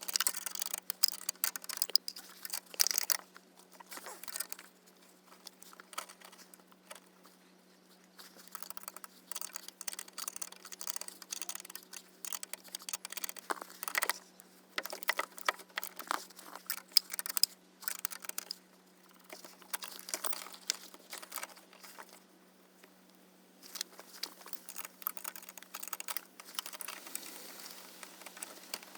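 Hand tools and metal parts being handled while working on a car's steering rack: irregular clicks, taps and rattles, with short quiet pauses.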